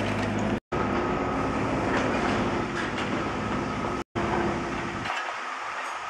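Steady street noise from a large running vehicle, a hum with several steady tones, broken twice by brief moments of total silence; its deep part fades out about five seconds in.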